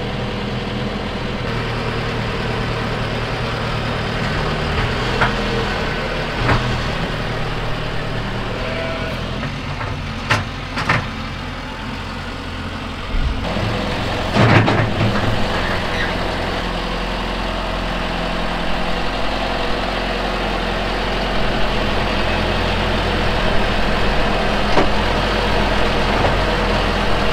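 Farm tractor engine idling steadily, with a few short knocks and clanks over it, the loudest about halfway through.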